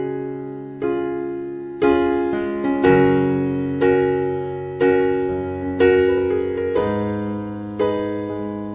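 Background music: electric piano playing slow chords, one struck about every second, each fading before the next.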